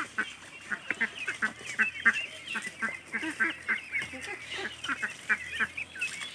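A flock of ducks and ducklings calling: many short, overlapping high peeps with some lower calls mixed in.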